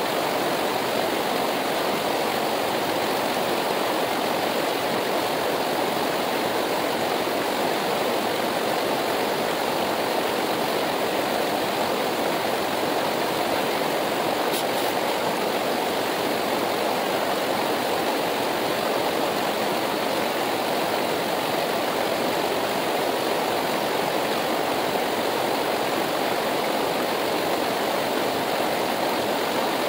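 Himalayan mountain river rushing steadily, a constant even noise of flowing water.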